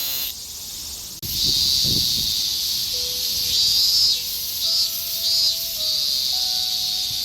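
Cicadas calling: a dense, high buzzing chorus that starts abruptly about a second in and swells and fades in repeated waves. A few low thumps come just after it starts.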